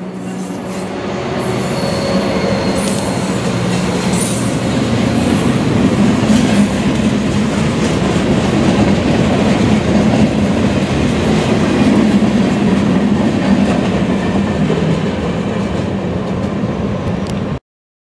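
Freight train passing close by: the locomotive consist with its road slug goes by, then boxcars roll past with a steady rumble and rattle of wheels on rail. The sound cuts off abruptly just before the end.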